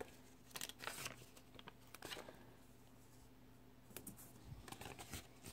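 Faint rustling and a few light taps of paper stickers being peeled and pressed onto a planner page.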